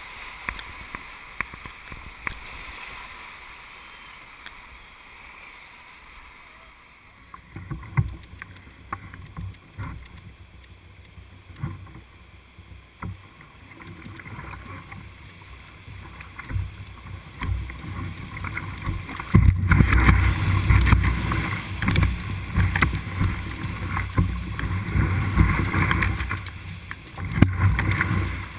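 Whitewater rapids rushing around a canoe as it runs down through them, with splashes and short knocks. From about seven seconds in, wind buffets the microphone in low gusts, and the whole grows louder in the second half.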